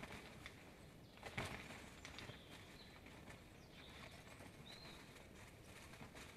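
Quiet forest ambience: a few faint, short, high chirps from small songbirds near the middle, over scattered soft ticks and rustles, with one sharper click about a second and a half in.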